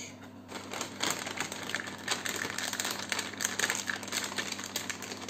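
Thin plastic disposable piping bag crinkling as it is handled, with a fluted metal nozzle being pushed down into its cut tip; the crackling starts about half a second in and goes on in a dense run of small crackles.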